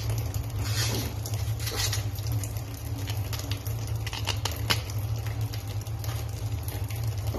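Tap water running into a basin while taro leaves are rubbed and rinsed by hand, with splashing, patter and leaf rustling over a steady low hum.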